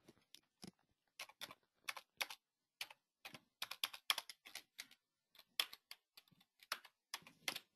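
Computer keyboard being typed on: faint, irregular keystroke clicks, a few per second, as a line of text is entered.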